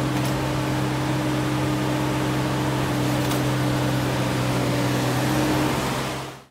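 Hako Citymaster compact street sweeper running, a steady machine hum with a low drone over an even rush of noise; it fades out about six seconds in.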